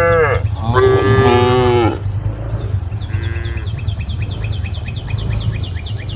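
Cows mooing: a loud moo ending just after the start, another long moo falling in pitch, and a faint short one about three seconds in. From then on a rapid series of high, falling chirps repeats about six times a second.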